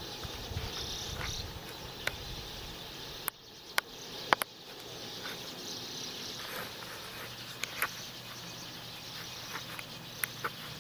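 Outdoor insect chirring, a steady high hiss, broken by a few sharp clicks and taps, two close together about four seconds in.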